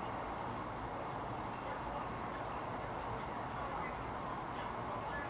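Crickets trilling in a steady, unbroken high-pitched chorus over low background noise.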